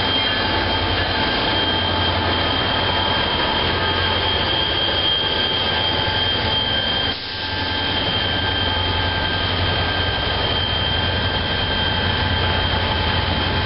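NJ Transit diesel-hauled ballast train passing close by. The locomotives rumble off and loaded hopper cars roll past in a steady low rumble, with a high, steady wheel squeal through the first half and a brief dip in loudness a little past the middle.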